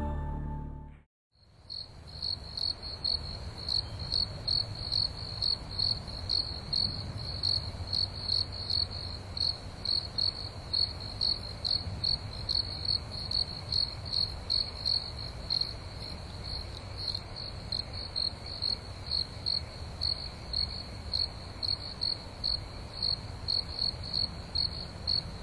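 Crickets chirping steadily, about two high chirps a second, over a low rumble. Fading music ends in the first second.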